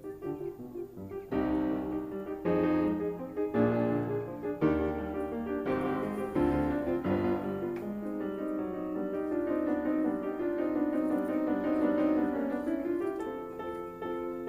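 Piano music, with chords struck about once a second in the first half, then smoother held notes.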